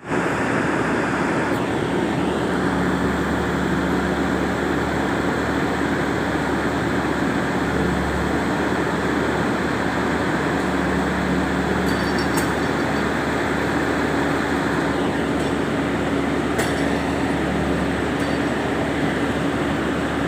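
Diesel engine of an XCMG rotary drilling rig running steadily under load, with a couple of light clicks about twelve and sixteen seconds in.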